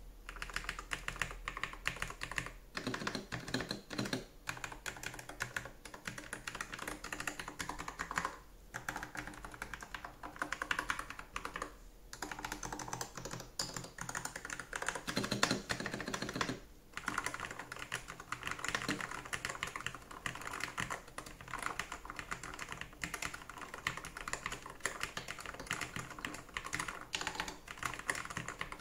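Typing sound test on a MonsGeek MG75S HE Hall-effect keyboard with Kailh Sakura Pink magnetic switches and PBT keycaps: fast, continuous keystroke clatter, broken by a few short pauses.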